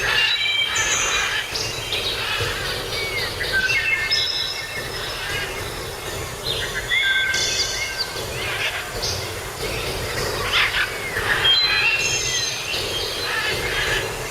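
Several songbirds singing and calling at once, a busy mix of short whistles, trills and sliding notes, over a low steady rumble.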